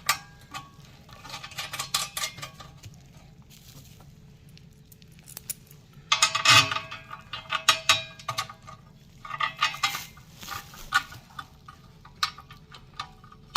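Small metal parts clinking and rattling in several bursts: nuts, washers and bolts being handled and threaded by hand onto the metal bracket of a TV stand. The clinks are loudest about halfway through.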